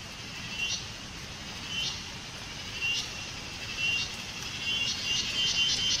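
Cicadas calling: a short buzzing chirp about once a second, running into a fast pulsing buzz near the end, over a low background rumble.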